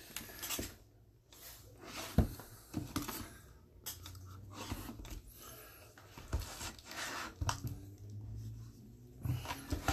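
Hands moving sealed cardboard trading-card boxes on a tabletop, sliding, lifting and setting them down with soft scraping and a few light knocks. A marker scratches numbers onto the boxes' shrink-wrapped lids.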